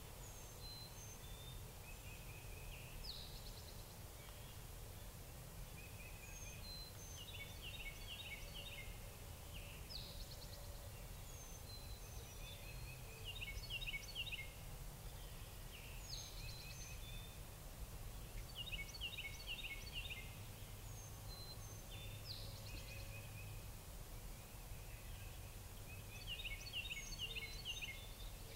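A songbird singing the same short phrase over and over, about every six seconds: a quick high sliding note followed by a cluster of rapid chirps, over a steady low outdoor rumble.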